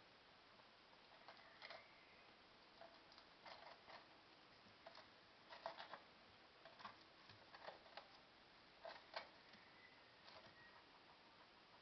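Domestic guinea pig eating from a ceramic bowl: faint, irregular clicks of chewing and food against the bowl, in short clusters.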